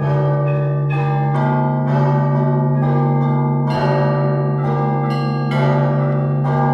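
Church bells being rung, Russian zvon style: a deep low hum from a large bell sustains throughout while smaller bells are struck over and over, about twice a second, each strike ringing on.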